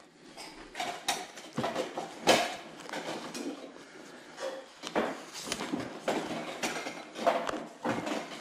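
Items being handled and rummaged through in a box: scattered clicks, knocks and rustling, with the sharpest knock about two seconds in.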